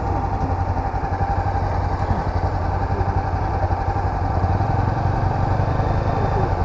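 Honda CB500X motorcycle's parallel-twin engine running at a steady pitch.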